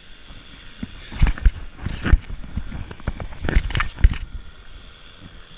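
Rustling of soybean plants with irregular knocks and thumps, about five strong ones between about one and four seconds in, as someone moves about in the crop with his gear.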